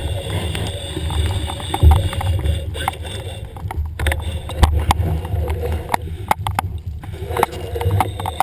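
Underwater sound picked up through a camera housing as a spearfisher fin-kicks toward the surface: a low, fluctuating rumble of water moving past the housing, with scattered sharp clicks.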